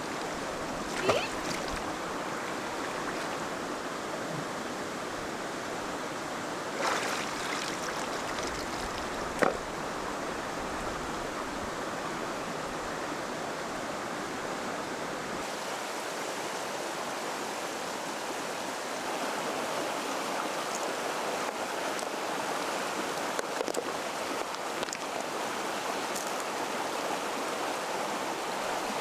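Steady rush of flowing water, with a few brief knocks in the first ten seconds.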